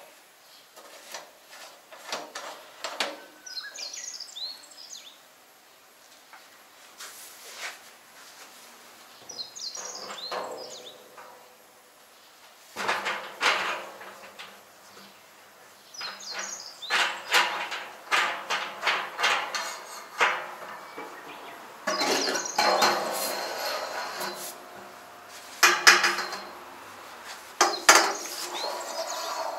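Irregular metallic clanking and rattling from a hand-crank drum pump being worked on a steel fuel drum, busier in the second half. Birds chirp briefly a few times.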